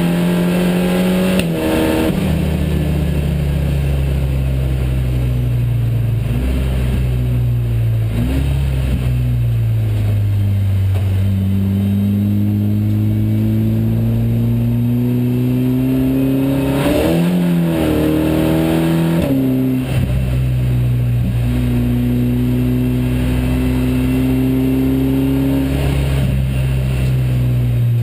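SEAT Supercopa race car's engine heard from inside the caged cabin, running hard with its pitch climbing through each gear and stepping down at the shifts. A quick run of shifts and blips comes a little past halfway.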